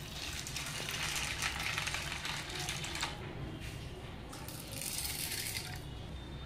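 Water poured onto dried black chickpeas in a steel bowl, a splashing hiss. After a short break, about three and a half seconds in, water is poured onto split chickpeas in a smaller steel tin, all over a low steady hum.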